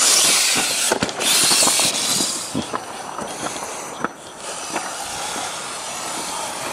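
2.2 MOA (motor-on-axle) RC rock crawler climbing a granite slab: its motors and gears whirring, with repeated short clicks and knocks of the tyres and chassis against the rock. A loud hissing rush fills the first two seconds.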